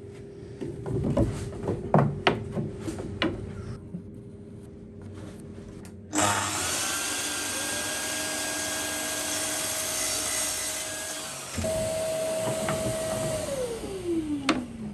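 A few light knocks and handling sounds, then a handheld power tool starts suddenly about six seconds in and works the timber with a steady whine. Near the end its note changes, then falls away as the motor winds down after being switched off.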